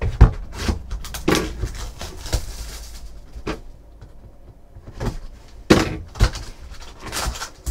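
A shrink-wrapped trading-card box handled on a tabletop: a string of knocks and plastic rustles as it is set down and its wrap is slit with a box cutter, with a quieter pause partway through.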